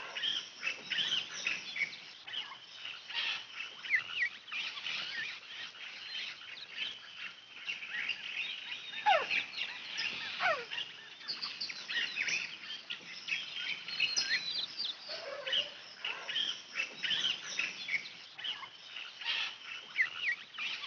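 Many birds of mixed kinds calling and chirping at once in a dense, continuous chorus of short, high chirps and trills. Twice near the middle, a louder whistle slides steeply down in pitch.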